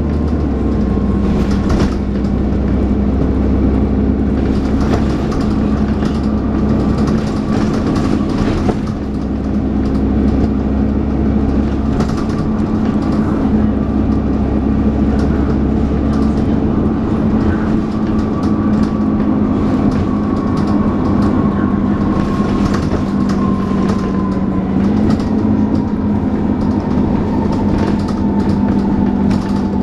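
Dennis Trident 2 double-decker bus running on the road: a steady engine drone with a thin whine that slowly falls in pitch over the second half, and frequent rattles and knocks.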